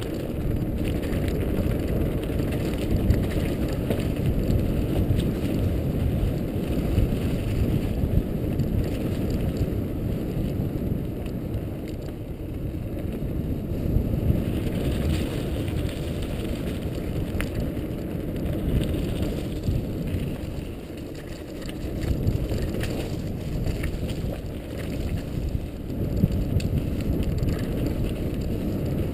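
Mountain bike riding fast down a gravel singletrack: tyres rumbling over loose stones with the bike rattling and clicking over the bumps. The sound is heavy and muffled, heard through the mounted GoPro HD Hero 2. It eases briefly about two-thirds of the way through, then picks up again.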